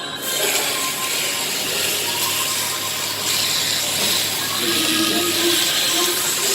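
Raw sirloin steak sizzling on a hot stone plate, a dense crackling hiss that starts abruptly and then holds steady.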